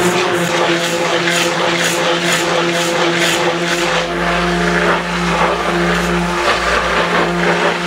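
Corded handheld electric mixer with a whisk attachment running steadily as it beats flour and raising agent into sponge-cake batter, a constant motor hum with a swishing that pulses about two to three times a second in the first half. The motor cuts off suddenly at the very end.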